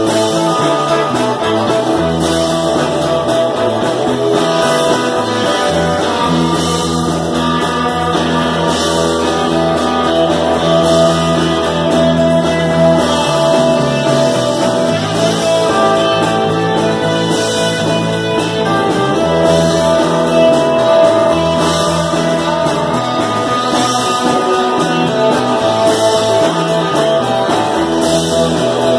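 Live rock band playing loudly: electric guitars and a drum kit.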